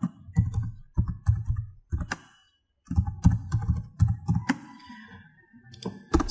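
Typing on a computer keyboard: quick, irregular keystrokes, with a short pause about two seconds in.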